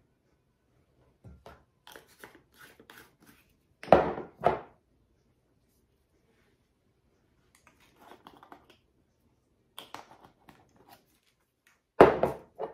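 Ground spices shaken from glass shaker-top spice jars in runs of light rattling taps, with a few louder knocks about four seconds in and near the end as jars are set down on a granite countertop.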